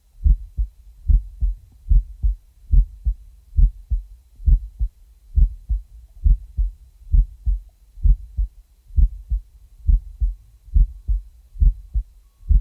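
Heartbeat: paired low thumps, lub-dub, repeating steadily at a little over one beat a second.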